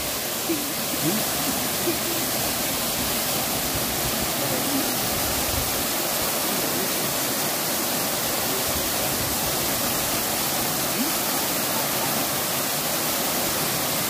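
Waterfalls pouring into a rock pool: a steady rush of falling water.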